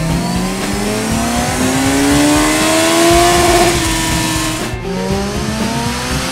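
Kawasaki Z1000's inline-four engine revving up under load, its pitch rising steadily. About four and a half seconds in it breaks off briefly and drops in pitch as it shifts up a gear, then climbs again.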